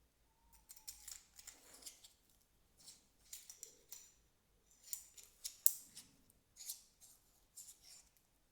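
Civivi C-Quill aluminium tactical pen being handled and worked: a scattered series of small, sharp metallic clicks and scrapes from its parts.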